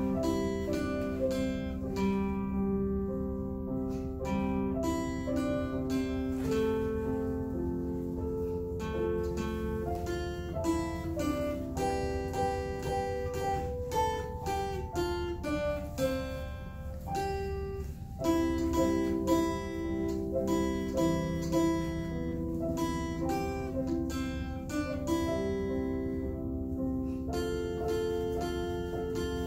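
Acoustic guitar played note by note together with an electronic keyboard, an instrumental Christmas carol.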